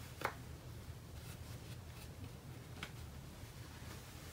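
Quiet handling of craft supplies on a work table: two soft clicks, about a quarter second in and near the three-second mark, and a little light rustling over a low steady room hum.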